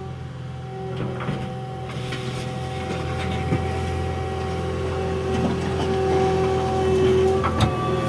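Caterpillar 236 skid steer's diesel engine running under load with a steady whine that grows louder toward the end as the machine drives and sets its bucket into the dirt. A few short knocks from the bucket and loader arms come near the end.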